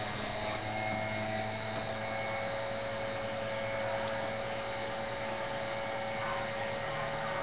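Steady electrical hum and hiss with a few faint steady tones running under it.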